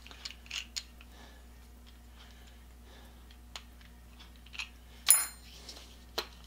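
Faint handling clicks and plastic-bag rustles, then about five seconds in a sharp metallic clink with a short bright ring, as a small metal piece is set or dropped onto the bench.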